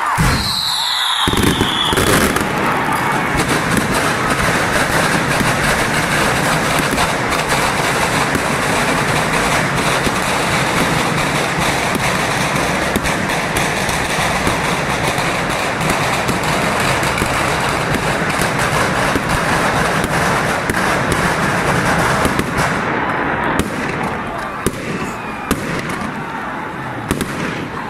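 A long, dense barrage of firecrackers crackling and banging without a break, thinning to scattered single bangs near the end, with a crowd's voices under it. A falling whistle sounds just after the start.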